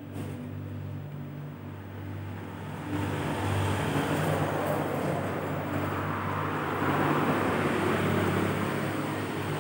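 Background motor-vehicle noise: a steady low engine hum, joined about three seconds in by louder, lasting traffic-like rushing noise.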